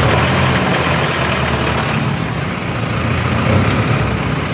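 Mahindra Arjun 605 DI tractor's CRDI diesel engine idling steadily, an even sound with no hunting or jerking.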